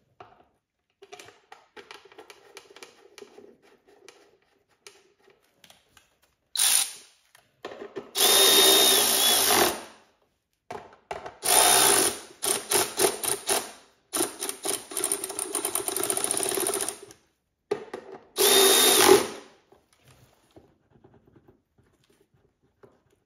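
Electric wrench spinning timing-cover bolts down into a Subaru EJ257 engine in about five bursts of one to three seconds, some steady with a motor whine and some stuttering in quick pulses. Faint rattling of the plastic cover being handled comes before the first burst.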